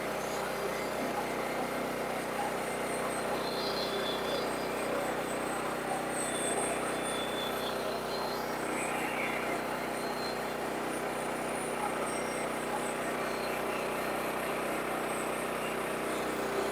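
Sawmill engine running at a steady speed, a constant even hum.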